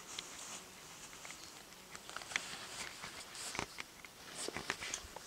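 Faint outdoor ambience: a light hiss with scattered small clicks and soft rustles at irregular intervals, a few sharper ticks after the middle.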